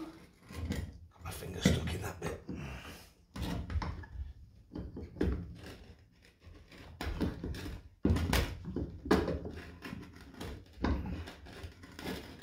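Irregular clunks, knocks and scraping of metal clutch-pulley plates and a rubber drive belt being handled. The scooter's clutch pulley is pried apart and turned by hand while the new belt is forced down between the plates to seat it.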